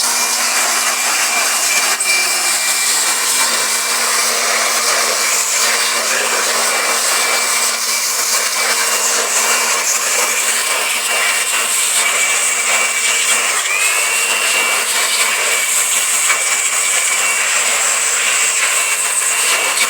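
Electric blower running steadily with a high motor whine, blowing dust out of an opened amplifier. The whine dips briefly about two-thirds of the way through and picks straight back up.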